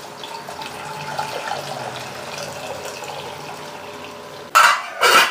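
Water poured from a stainless-steel vessel into a steel pot, a steady splashing pour. Two short, loud noises come near the end.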